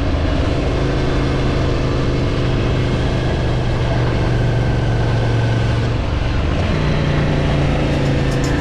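Ducati Scrambler Nightshift's 803 cc air-cooled L-twin running at steady riding revs under a strong rush of wind noise. About six seconds in the engine note drops briefly, then settles again at a higher pitch.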